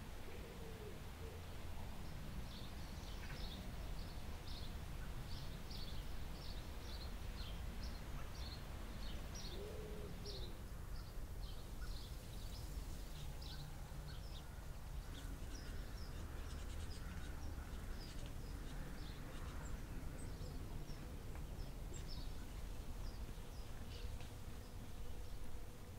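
Small birds chirping in the background, quick short chirps once or twice a second for the first half and more sparsely after, over a steady low rumble. A single low hooting call about ten seconds in.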